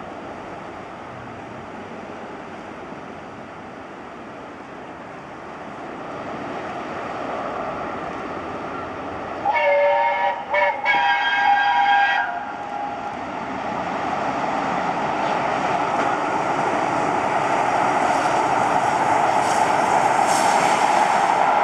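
Steam locomotive 60163 Tornado, an LNER Peppercorn A1 Pacific, sounds its chime whistle, several notes together, in a few short blasts about ten seconds in. Around it the locomotive and its coaches run along the line, growing louder as the train draws near.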